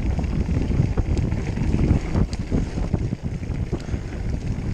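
Wind buffeting the microphone over the rumble and clatter of a Specialized Turbo Levo electric mountain bike riding fast over a rough trail, with scattered sharp knocks.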